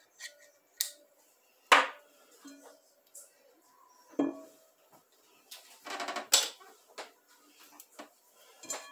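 A plastic spatula scraping out an opened metal can of sweetened condensed milk and knocking against the can and the rim of a glass mixing bowl. It makes a few sharp clinks and knocks at irregular moments, the loudest about two seconds in, with a quick cluster past the middle.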